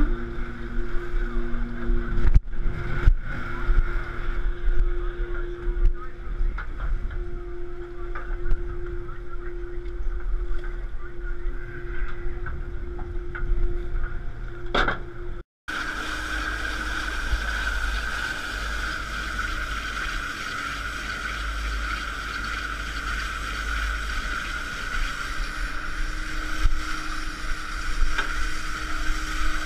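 Work boat's engine running steadily at sea, with a steady whine over the low rumble and a couple of knocks a few seconds in; the sound drops out for a moment about halfway through, then carries on.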